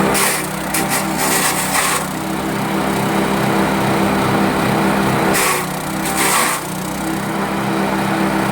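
Engine-driven grass chopper machine running steadily at a constant speed, with two stretches of rushing, hissing noise laid over the engine hum, near the start and again past the middle.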